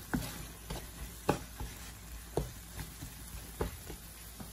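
Wooden spatula stirring a sizzling mix of sautéed tomato, onion and garlic in a frying pan: short scraping knocks against the pan about twice a second over a faint sizzle, stopping near the end.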